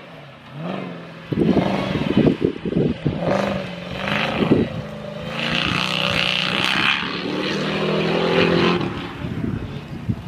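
Engine of a modified off-road competition vehicle revving hard as it drives through a muddy course, its pitch rising and falling with the throttle. A run of sharp crackles comes between about one and three seconds in, and a hiss rises over the engine around the middle.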